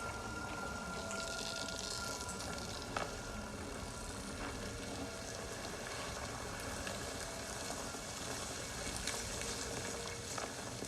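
Steady hissing noise with a few faint clicks.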